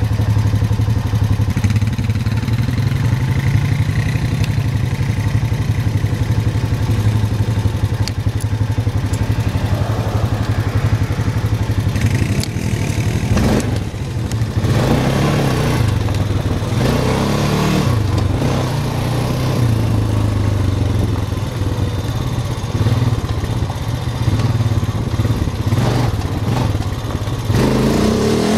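ATV engine running under way, steady for the first half and then rising and falling in pitch with the throttle, with a few brief knocks.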